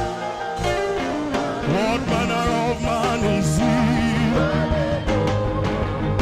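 Saxophone playing a gospel worship melody with sliding, bending notes over a live backing band's bass and drums.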